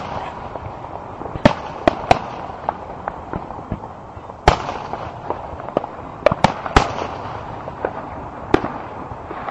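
Aerial firework shells bursting overhead: a string of sharp booms at irregular intervals, the loudest about four and a half seconds in and again near seven seconds.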